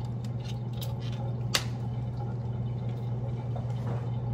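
A steady low hum with a few light clicks, the sharpest about a second and a half in. The kitchen tap is off.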